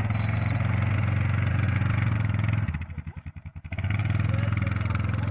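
Quad bike engine running steadily. About three seconds in, its note drops for about a second to a slow, pulsing run, then picks up again.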